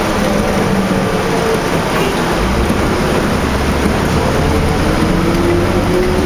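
Transit bus drivetrain, a Cummins ISL diesel with a ZF automatic transmission, heard from on board over a steady hiss of rain and road noise. The pitch falls a little at first, then climbs steadily over the last two seconds as the bus picks up speed.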